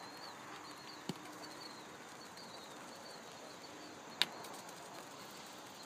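Steel pétanque boules knocking: a dull knock about a second in and a sharper, louder metallic clack about four seconds in. Birds chirp faintly in the background.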